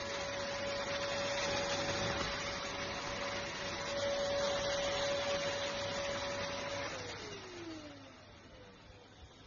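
K7 Pro cordless handheld vacuum cleaner running with a steady whine and a rush of air. About seven seconds in it is switched off, and the motor spins down with a falling pitch.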